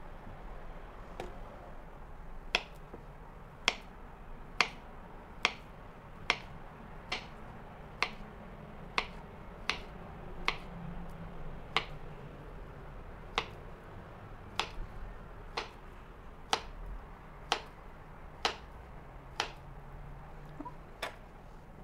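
Ceramic knife slicing a banana on a wooden cutting board: a sharp tap each time the blade goes through and meets the board, about one a second.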